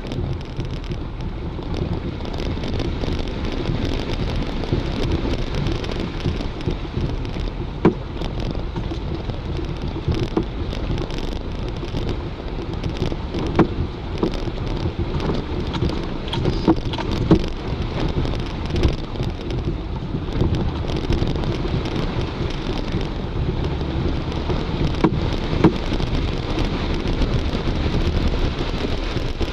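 Four-wheel-drive vehicle driving slowly through deep muddy floodwater, heard from inside the cab: the engine running under a steady wash of water sloshing and splashing against the body and underside, with a few sharp knocks as it goes over the uneven bottom.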